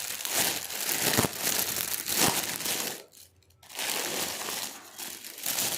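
Plastic packaging crinkling as it is handled and opened, with a brief pause about three seconds in.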